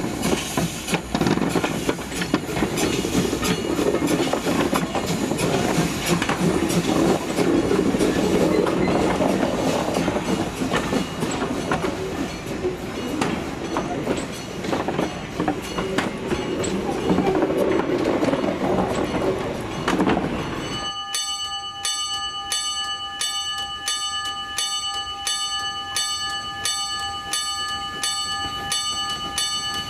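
Borsig steam tank locomotive pulling its coaches away, running with a dense clatter of exhaust and wheels on the rails. About two-thirds of the way in the sound cuts to a level-crossing warning bell ringing in a steady, regular repeated beat as the train approaches.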